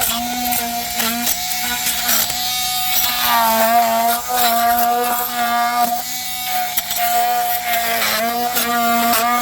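Electric oscillating multi-tool buzzing as its blade cuts away excess cured waterfall foam, the pitch dipping and recovering several times as the blade bites and frees, with scraping clicks of the blade on the foam.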